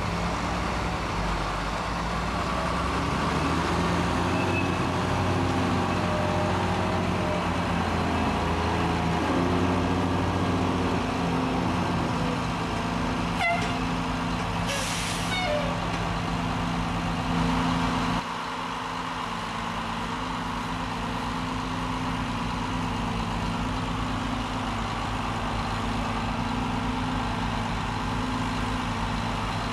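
Heavy diesel engines of mobile cranes running under load during a lift, with the engine speed rising and falling for several seconds before settling to a lower, steadier note about 18 seconds in. A short hiss of released air comes about 15 seconds in.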